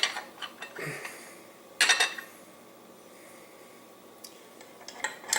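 Metal meat-grinder parts clinking and knocking as they are handled and fitted together: a few sharp clinks, the loudest about two seconds in and another just before the end.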